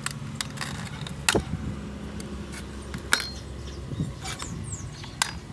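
Hubcap being pried off a car wheel: a string of sharp clicks and clatters, the loudest about a second and a half in, over a low steady hum.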